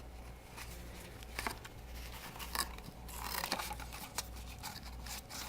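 Cardboard box and packaging being handled and pulled apart: faint scattered rustles and small taps.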